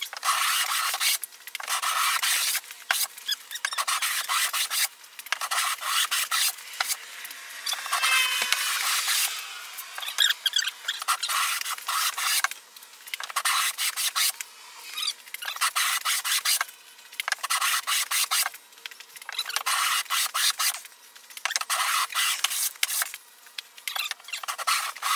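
Hand plane set to a coarse cut shaving the edge of a long mahogany plank. Repeated rasping strokes, each about a second long, with short pauses between them.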